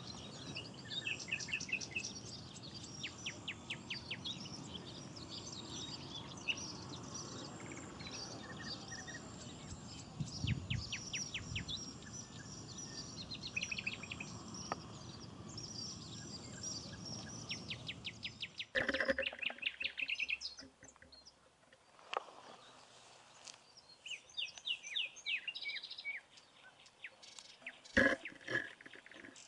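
Small birds chirping and twittering in quick repeated notes over a steady low background noise. About nineteen seconds in, the background drops away and the chirps become sparser, with a sharp click or two near the end.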